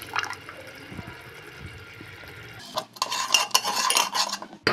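A diluted spice paste poured into hot oil in a pressure cooker, frying with a low steady sizzle. About two-thirds of the way in, a metal ladle stirs it, scraping and clinking against the cooker's metal sides in quick repeated strokes.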